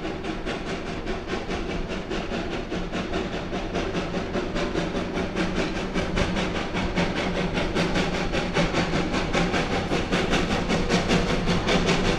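W&L 203, a 2-8-0 steam locomotive, working hard with a quick, even exhaust beat as it approaches, growing steadily louder.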